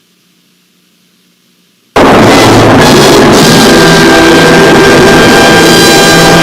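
Faint low hum, then about two seconds in a sudden, extremely loud, distorted blast of music with several held tones. It is the error sting for a wrong code entry.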